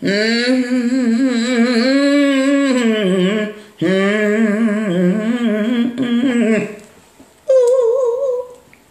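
A woman humming a slow, wordless tune, holding long notes with vibrato: two long phrases, then a short higher one near the end.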